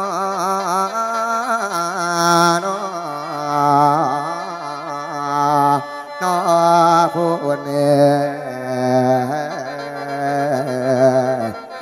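Mor lam singing: a long, drawn-out melismatic vocal line with a wavering, sliding pitch. This is the sung opening invocation of a Lao-Isan lam performance, held on single syllables. The line breaks briefly about halfway and again near the end.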